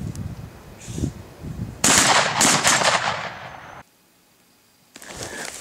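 A shotgun shot about two seconds in, its sound trailing off over about two seconds before cutting off abruptly.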